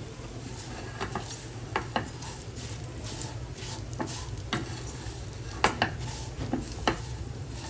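Red silicone spatula stirring and scraping fine vermicelli and cashews roasting in ghee in a nonstick kadai over a low flame, with irregular light taps and clicks against the pan, over a steady low hum.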